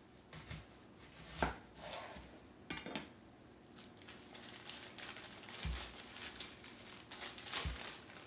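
Quiet food-preparation handling: a handful of separate soft knocks and clicks, with some crinkling between them.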